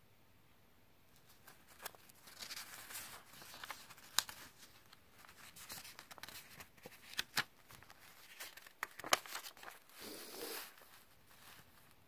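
Paper pages of a small booklet rustling and crinkling as they are handled and turned, starting about a second in, with many sharp crackles of the paper.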